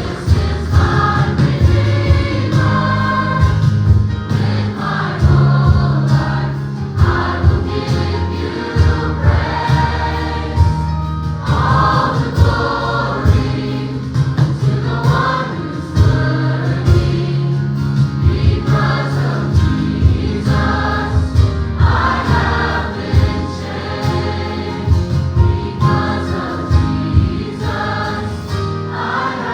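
A gospel choir singing a worship song with a band, steady bass under the voices.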